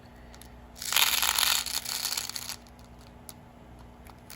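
A small plastic bead packet crinkling as it is handled: a rustling burst of about two seconds beginning about a second in, with a few light clicks before and after.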